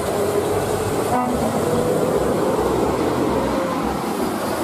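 A PO Haryanto coach bus driving close past on a wet road: steady engine and tyre noise.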